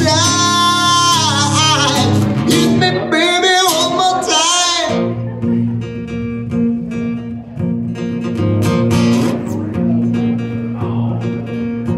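A man singing a long, wavering line over a strummed acoustic guitar; about five seconds in the voice stops and the guitar carries on alone, strumming chords.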